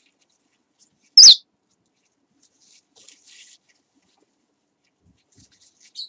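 Parrot giving one short, loud, high-pitched call that falls in pitch, about a second in, followed by faint scratching.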